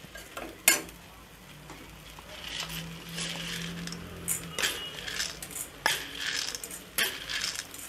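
Steel spatula scraping and clinking against a stainless steel pan while stirring a thick onion–tomato masala, with a few sharp metallic clinks. In the second half, roasted gram is dropped into the pan.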